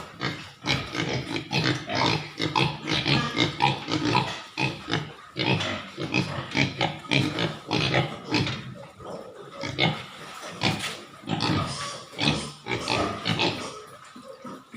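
Several pigs vocalizing at once in quick, irregular, overlapping bursts.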